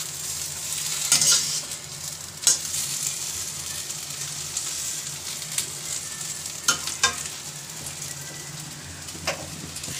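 Jackfruit pieces sizzling in hot oil in a kadhai while a slotted metal spatula stirs them, with a few sharp scrapes of the spatula against the pan.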